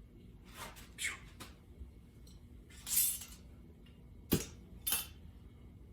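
Handling noises as a glass and rag are fetched and set out: a few soft rustles and scrapes, a louder rustle about three seconds in, then a sharp knock and a second knock about half a second later.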